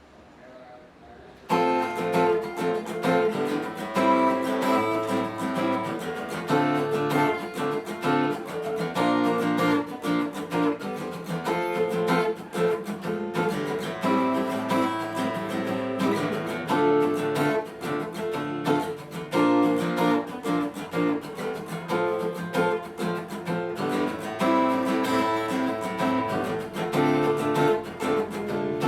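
Copy Taylor 314ce steel-string acoustic guitar played solo, the piece starting about a second and a half in.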